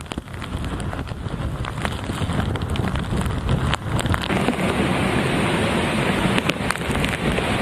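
Typhoon wind buffeting the microphone with rain falling: a dense, rumbling rush peppered with small hits, growing a little louder.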